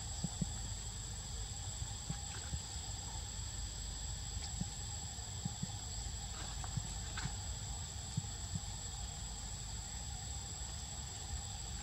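Steady high-pitched insect drone, with a low rumble underneath and a few faint ticks.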